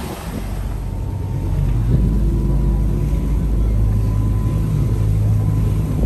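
Tour boat's engine running with a steady low drone, its pitch wavering slightly a couple of times.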